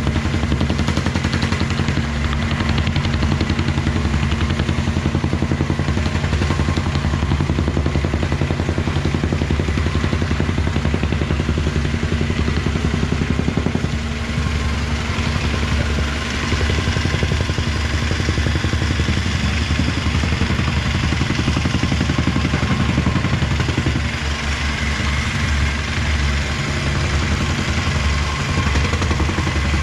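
Cat 306 mini excavator's diesel engine running steadily at working speed, easing off briefly a few times midway.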